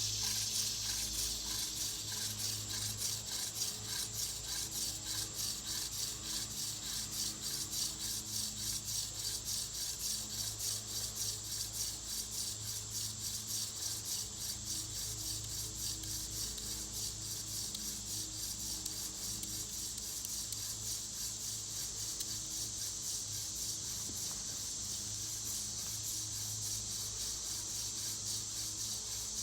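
Hand drill fire-making: a horseweed spindle spun back and forth between the palms, its tip grinding in the notch of a tulip poplar fireboard. It makes a steady, evenly repeating friction rasp while drilling for an ember.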